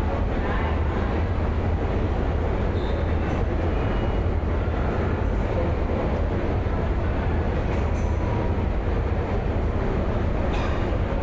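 Subway station ambience: the steady, deep rumble and noise of a subway train running in the station. A faint high squeal comes about 3 seconds in, and brief clicks come later.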